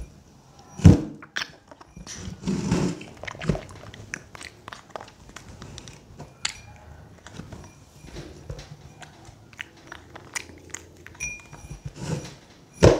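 A baby monkey's hand scrabbling and scooping inside a drinking glass, making scattered small clicks and taps on the glass, with two loud thumps against the table, about a second in and at the very end.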